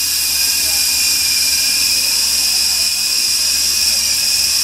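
Volitation three-channel coaxial RC toy helicopter in flight: its electric motors and spinning rotors give a steady high-pitched whine.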